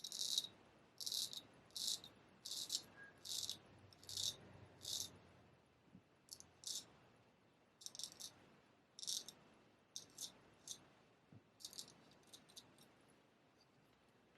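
Olympia straight razor scraping through beard stubble in a series of short, quick strokes, about one or two a second with brief pauses, each a crisp high-pitched rasp.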